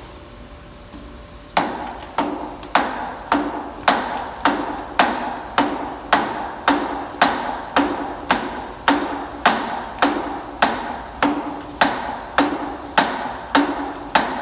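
Hammer tapping lightly and evenly on a metal part of a track-system wheel assembly, about two taps a second, starting about a second and a half in, each tap with a short metallic ring.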